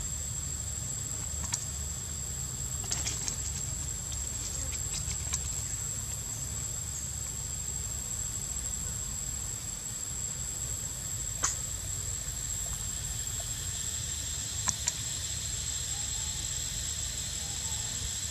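A steady high-pitched insect drone over a low rumble, with a few short sharp clicks, the loudest about eleven and fifteen seconds in.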